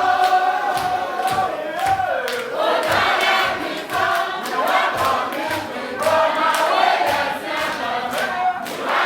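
A crowd of people singing together in chorus, with a steady beat of strikes about twice a second.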